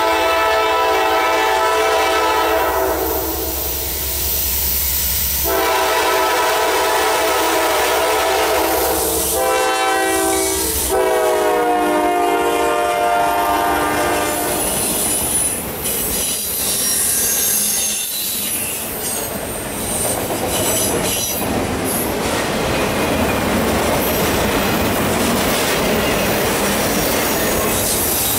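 Horn of a Norfolk Southern GE Dash 9-40CW locomotive blowing four blasts, long, long, short, long (the standard grade-crossing signal), the last blast dropping in pitch as the locomotive passes. The train's autorack cars then roll by with a steady rumble, clickety-clack and wheel squeal.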